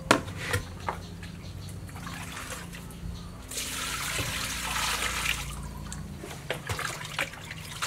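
Water splashing and sloshing in a large aluminium basin as raw pig liver is washed by hand, with a longer rush of water for about two seconds midway and small splashes toward the end.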